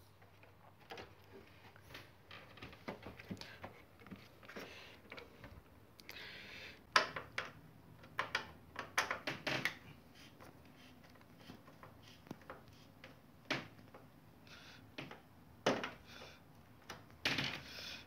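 Scattered small clicks and knocks of plastic and metal parts being handled and screwed as an air conditioner's indoor unit is refitted, with a busier run of clicks about halfway through.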